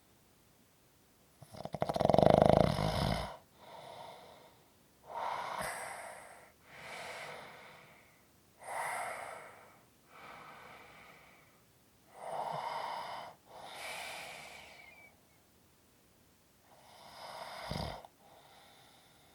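A sleeping person snoring: one loud, fluttering snore about two seconds in, then slow, heavy breaths in and out, about four in all, the last one ending in a short snort.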